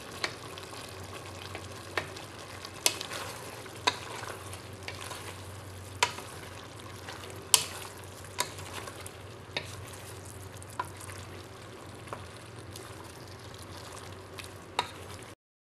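Beef and sliced onions sizzling in a stainless steel pot while a wooden spoon stirs them, knocking against the pot every second or two, the sharpest knock about halfway through. The sound cuts off suddenly just before the end.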